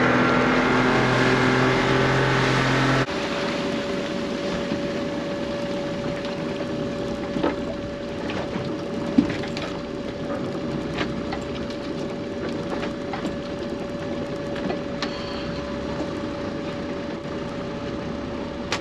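Small fishing boat's outboard motor running under way, with hull and water noise. It is louder for the first three seconds, then drops abruptly to a steadier run with a constant whine and occasional light knocks.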